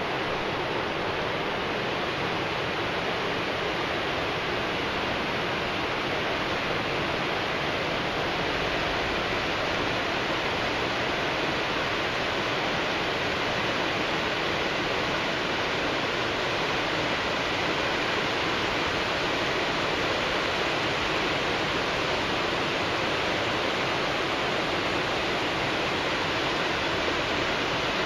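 Swollen, muddy river rushing in flood after a typhoon: a steady, unbroken rush of water.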